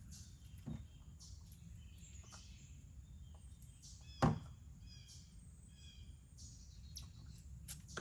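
Outdoor ambience: a steady low rumble with small birds chirping now and then, and a single sharp thump about four seconds in.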